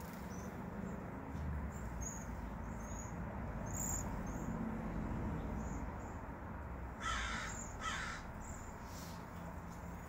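Cedar waxwings giving short, thin, high-pitched calls scattered throughout. Two loud harsh calls come about seven and eight seconds in, over a low background rumble.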